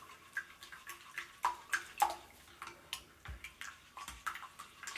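Whisk beating a runny egg-and-cream batter in a glass baking dish: quick, irregular wet splashes and clicks, about three a second.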